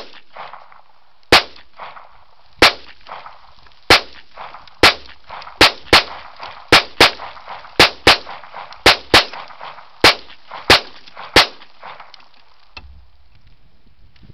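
Gen 3 Glock 17 9mm pistol firing a string of about sixteen shots at an uneven pace, some in quick pairs, each shot with a short ring-out.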